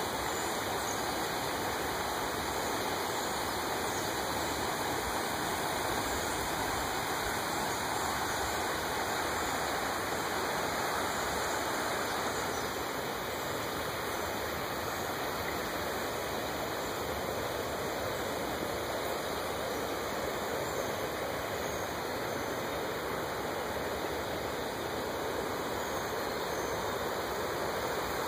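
Floodwater rushing steadily over a flooded road and through woodland, a constant sound of fast-flowing water.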